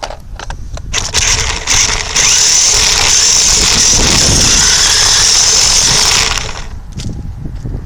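Toy RC truck's electric motor and gears whirring at full throttle, heard very close up. Clicks and rattles first, then the whir builds about a second in, holds steady and loud, and drops off near the end.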